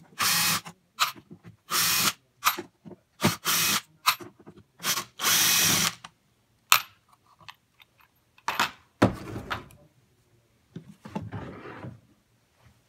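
Cordless drill-driver spinning in four short bursts as it backs screws out of the speaker cabinet's metal control panel, with small clicks between bursts. A sharp knock and some rustling and scraping follow in the later seconds.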